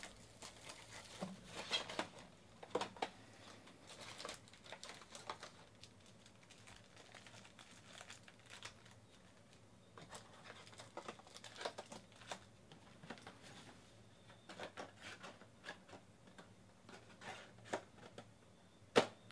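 Plastic wrapping crinkling and tearing as a box of baseball card packs is unwrapped and opened, then the foil packs rustling as they are pulled out and laid down, with scattered light clicks and a sharp tap near the end.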